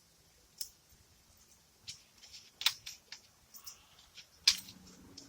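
Scattered light clicks and clacks of the cradle's angle brackets and small fixings being picked up and handled, the sharpest about two and a half and four and a half seconds in.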